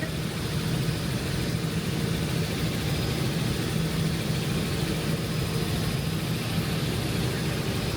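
Helicopter in flight heard from inside the cabin: the engine and rotors drone steadily.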